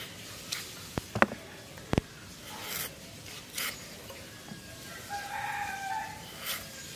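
Raw potato being cut against an upright bonti blade: a few sharp clicks and crunches, loudest between one and two seconds in. A rooster crows for about a second, some five seconds in.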